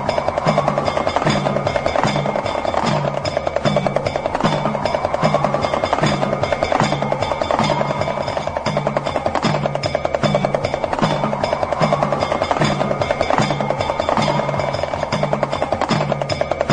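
Damru, the small two-headed hourglass hand drum, rattled in a very fast continuous roll over a steady low pulsing beat and a sustained drone, with slow rising and falling tones weaving through.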